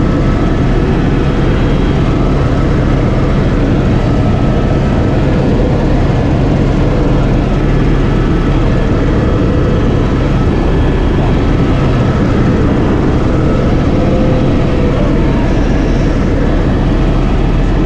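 Helicopter in flight heard from inside the cockpit: a loud, steady drone of engine and rotor, with a thin high whine over it.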